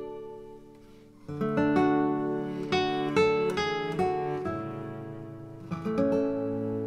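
Background music on acoustic guitar: plucked and strummed chords. It fades low about a second in, then picks up again.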